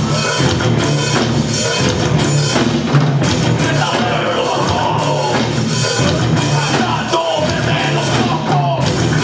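Live rock band playing: electric guitars and a drum kit, loud and without a break.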